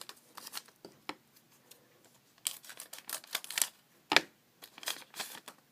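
Scissors snipping open a foil booster pack of trading cards, with the wrapper crinkling and cards being handled in short, irregular clicks and scrapes; a sharp click about four seconds in.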